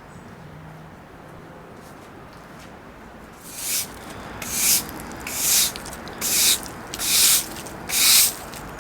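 Rhythmic rasping strokes, about one a second, starting a little over three seconds in.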